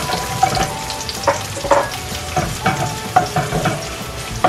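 Minced garlic and sliced onion sizzling in hot cooking oil in a non-stick wok, stirred by a wooden spatula that scrapes and taps the pan in short, irregular strokes.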